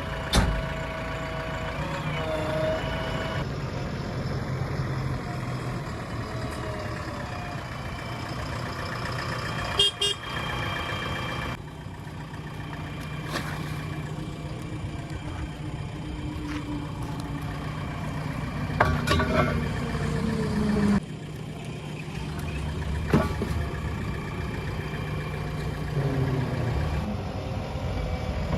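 JCB 3DX backhoe loader's diesel engine running steadily, with a few sharp knocks and clanks along the way.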